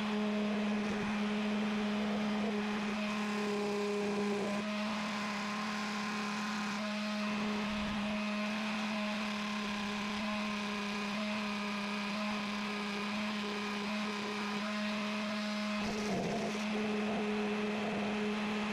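Electric sander running steadily against a wooden dowel hammer handle, a constant motor hum under a rushing sanding noise, with small shifts in tone as the wood is worked.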